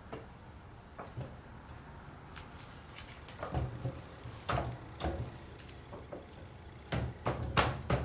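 Scattered metal clunks and knocks from an NP208 transfer case being worked by hand, its shift lever moved through its positions to find neutral. The knocks come in small groups, the loudest near the end.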